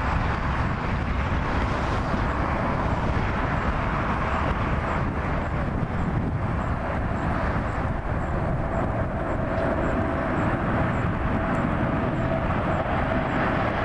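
Boeing 747-8's four GEnx turbofan engines on landing approach: a steady jet rumble, with a steady whine coming in about halfway through as the aircraft draws nearer.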